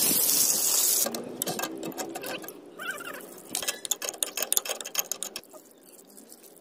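Mains water gushing and spraying from an open supply pipe, cut off about a second in. Then a run of light clicks and taps as pipe fittings are handled, dying away near the end.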